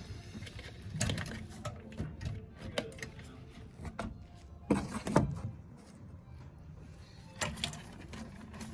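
Hands and tools clicking and knocking against the metal parts of an Intertherm mobile home furnace while its gas valve is being taken off, with two louder knocks about five seconds in.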